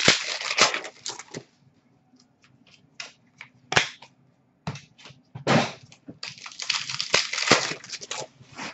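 Trading-card pack wrappers being torn open and crinkled, with snaps and clicks of the cards being handled. The crackling comes in bursts: one in the first second and a half, a short one in the middle, and a longer one near the end.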